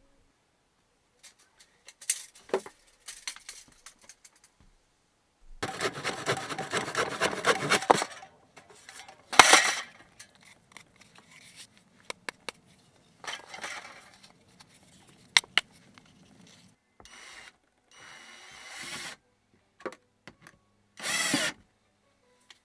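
Hand saw cutting through a wooden batten for about two seconds, among knocks and clicks of wood being handled, with a short run of a cordless drill driving a screw near the end.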